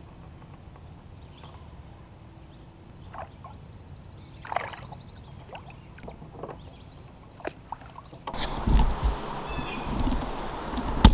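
Faint scattered knocks and light water sounds around a fishing kayak on calm water. About eight seconds in, this gives way abruptly to a louder, steady rushing noise with low thumps.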